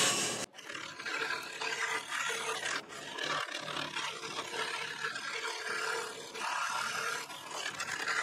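Scroll saw running steadily, its reciprocating blade cutting through a wooden board.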